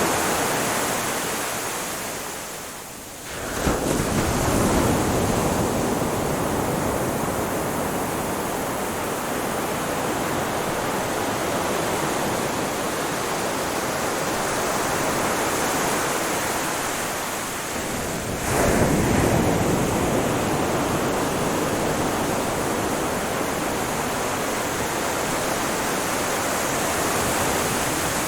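Ocean surf: a steady wash of waves on the shore, with two waves breaking in a sudden surge, one a few seconds in and another a little past the middle.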